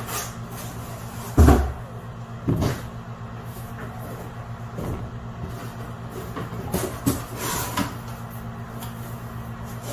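A cardboard shipping box being handled on a metal table: a heavy thump about a second and a half in, another knock a second later, then lighter knocks and scrapes as the box lid is lifted open. A steady low hum runs underneath.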